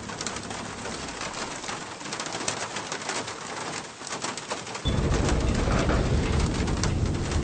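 Pigeons cooing over a noisy, crackling background; about five seconds in, a much louder low rumble comes in.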